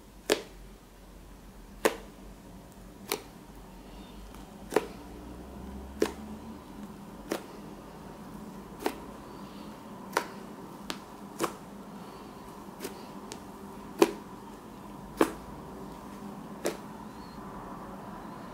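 Fluffy slime being pressed and squeezed by hand, giving sharp popping clicks as trapped air bursts, about fourteen pops, roughly one every second and a bit.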